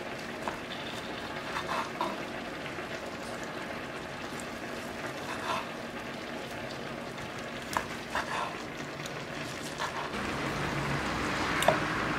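Chef's knife cutting boiled chicken breast on a wooden cutting board, the blade knocking on the board every second or two, over a steady hiss.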